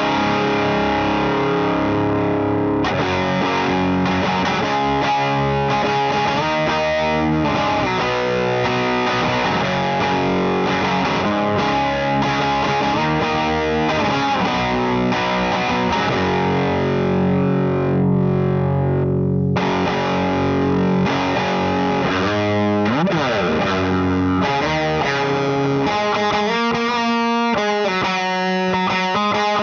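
Electric guitar played through the LPD Pedals Sixty8 Deluxe pedal into a Satellite Neutron amp, with a distorted tone: chords and riffs, a slide in pitch past the middle, and quicker picked notes near the end.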